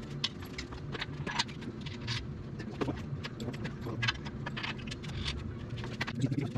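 Engine hoist and chain lifting an outboard powerhead off its leg: irregular metallic clinks and knocks, with a low hum underneath.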